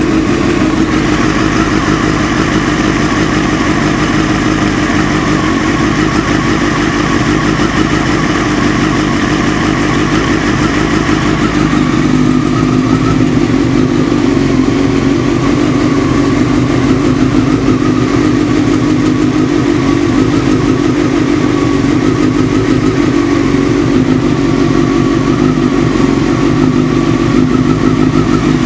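Motorcycle engine idling steadily while warming up, its idle note dropping slightly about twelve seconds in. The engine knock that shows when it is cold is practically inaudible by now, fading as the engine warms.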